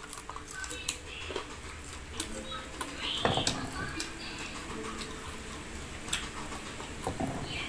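Eating noises: chewing, lip smacks and fingers pulling grilled chicken off the bone, heard as scattered short clicks and smacks, a little louder about three seconds in. Faint background music with held tones runs underneath.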